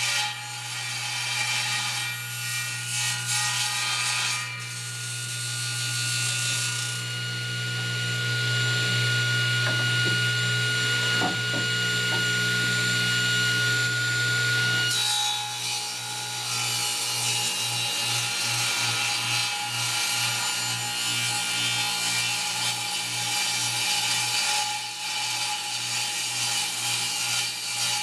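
Electric power saw running and cutting wood, ripping boards, with a steady motor hum under the cutting noise. About halfway through, the sound changes to a regular pulsing.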